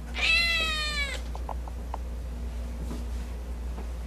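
Tabby kitten meowing once: a single drawn-out meow about a second long, its pitch easing slightly downward, followed by a few faint clicks.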